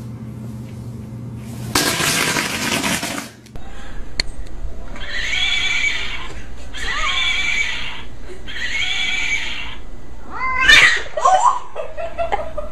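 A loud burst of noise about two seconds in, then a cat yowling: three similar drawn-out calls about two seconds apart, then rising wails near the end.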